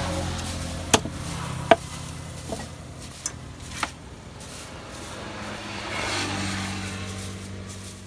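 Machete chopping tilapia on a wooden stump block: two sharp strikes about a second in, then a few lighter knocks. A motor hums steadily underneath and grows louder near the end.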